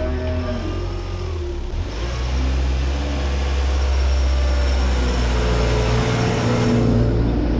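Diesel engine of a John Deere compact wheel loader running as the machine drives forward, a steady low rumble with an engine note that rises and falls.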